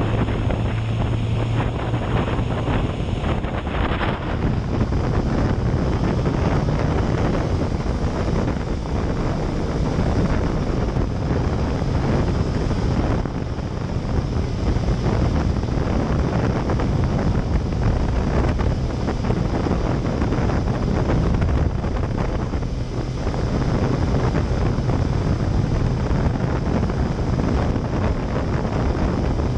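Wind rushing over the camera microphone on a moving Yamaha Fazer motorcycle in the rain, over the steady drone of its four-cylinder engine and the hiss of tyres on a wet road.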